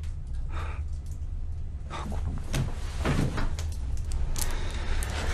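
A steady low hum with a few short, soft knocks and rustles scattered through it.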